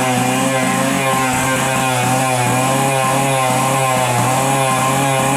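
Zündapp C50 Sport's 50 cc single-cylinder two-stroke engine running steadily at high revs, held near full throttle, with a slight waver in pitch.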